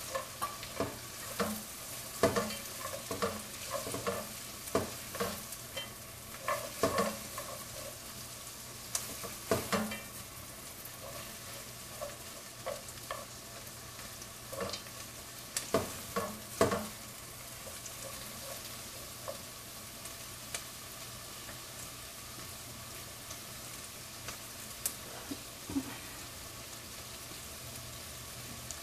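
Sliced onions frying in butter and canola oil in a stainless steel pot, a steady sizzle as they soften. Over about the first half a spoon stirs them with frequent knocks and scrapes against the pot, and cashew nuts are dropped in.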